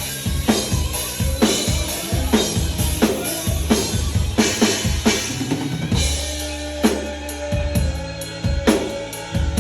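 Drum kit played over a band backing track: kick, snare and cymbals in a steady beat, with bass underneath. About six seconds in, the cymbal hits drop away briefly under a held bass note, then the beat picks up again.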